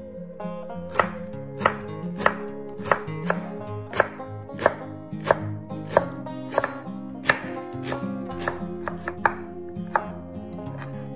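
Chef's knife slicing leeks into rings on a wooden cutting board: a regular run of sharp chops, about one and a half a second, starting about a second in and getting quicker and lighter near the end. Soft background music plays underneath.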